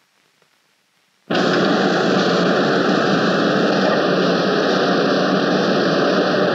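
Near silence, then about a second in, a loud, steady din of factory machinery starts abruptly: the shop-floor noise of a gasoline engine assembly plant.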